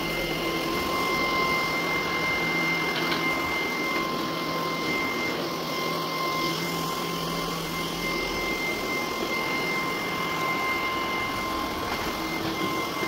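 Cordless stick vacuum cleaner running steadily on a hard floor: an even rushing of air with a constant high whine.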